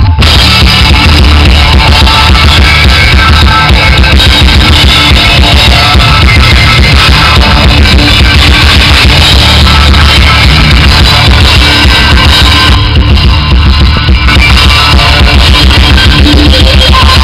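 Rock band playing live: electric guitars and a drum kit, recorded very loud and harsh, close to overload.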